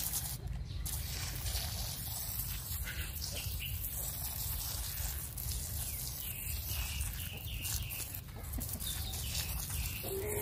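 Water spraying from a garden hose nozzle onto wet soil in a plant pot, over a low steady rumble, with farm birds calling in the background.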